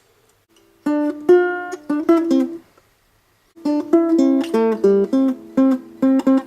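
Acoustic guitar playing short plucked notes in two phrases, with a pause of about a second between them.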